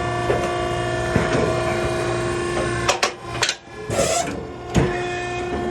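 Maren baler's hydraulic unit running with a steady whine and hum. About three seconds in it cuts out with a click, there is a short hiss, and it starts up again with a click a little before five seconds.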